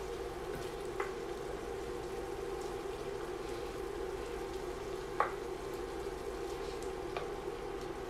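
Ground beef sizzling as it browns in an enameled Dutch oven while it is stirred with a spatula, the last pink spots being cooked out. A few light clicks of the spatula against the pot, the sharpest about five seconds in.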